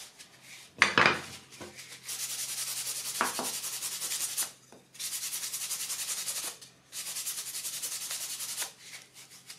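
Kitchen paper rubbed fast back and forth over the dry milk paint on a wooden spoon handle, in three long bouts of scrubbing with short pauses between, with a brief louder handling sound about a second in. The rubbing burnishes the paint and knocks off the little bumps and bubbles.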